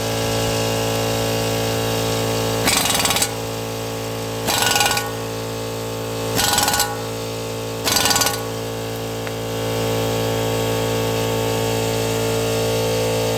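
Four short bursts of an impact wrench, each about half a second long, running bolts on a new wheel hub assembly and steering knuckle, over a steady hum.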